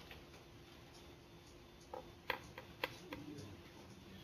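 Quiet room tone, then a quick run of about five light clicks or taps a couple of seconds in.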